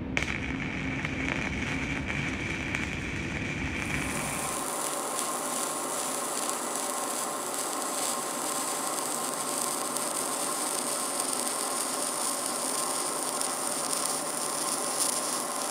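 Shielded metal arc (stick) welding with an E6010 electrode: the arc runs steadily with a continuous hiss that turns brighter about four seconds in, as the bead is carried up to a stop.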